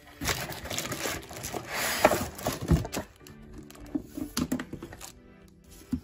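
Cardboard box and plastic wrap being handled: rustling and scraping, with a knock just before the middle, over soft background music that carries on alone in the second half.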